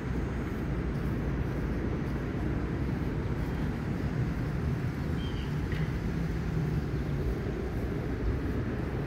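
Steady low outdoor rumble with no clear single source, with a faint low hum running for a second or two past the middle and a faint short high chirp about five seconds in.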